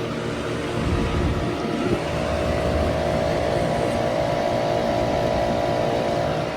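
A 2012 Lasko side-discharge 400 series heat pump running: a steady mechanical hum with a low rumble, growing louder about a second in and carrying a steady mid-pitched tone until it drops back near the end.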